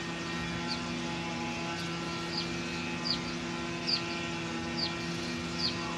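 A steady motor drone holding several pitches at once, with faint short high chirps that fall in pitch, repeating about every 0.8 s.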